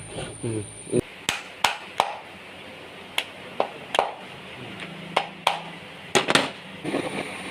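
About a dozen irregular sharp clicks and knocks from a Hyundai Eon's electric power steering column, the sign of a worn bearing at the pinion end.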